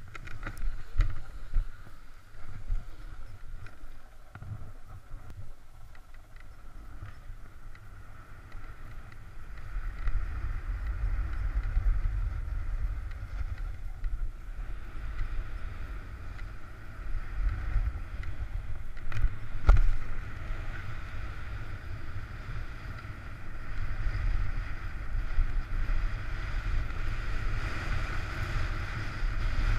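Wind buffeting a head-mounted GoPro's microphone while sliding down a groomed snow run, over a steady hiss of edges scraping the packed snow. Both get louder as speed builds about a third of the way in and again near the end, and there is a single sharp knock about two-thirds of the way through.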